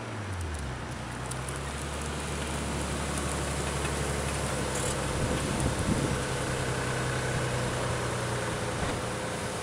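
A 1993 Nissan 300ZX's V6, breathing through Stillen headers and a Billy Boat exhaust, settles from higher revs in the first half second and then runs steadily at low revs. There is a brief rougher, louder patch about six seconds in.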